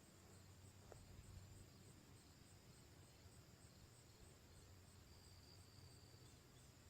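Near silence: faint outdoor background with a steady low hum and a faint, evenly pulsing high trill of insects.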